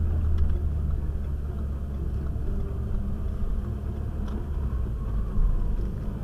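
Steady low rumble of engine and road noise inside the cabin of a Renault Mégane RS driving at town speed.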